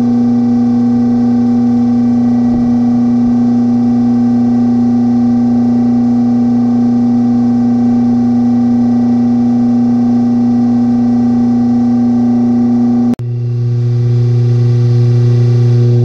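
A loud, steady low drone made of several fixed tones. It breaks off with a click about 13 seconds in and comes back at once, now sitting lower in pitch.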